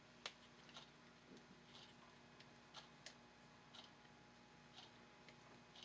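Near silence with faint, scattered small metallic clicks, about one a second, from a magnetic screwdriver turning a short screw into a Colt 1851 Navy revolver's frame.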